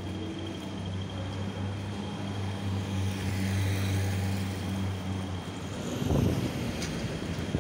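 Street traffic: a steady low engine hum from a nearby vehicle, with a car passing close by about six seconds in.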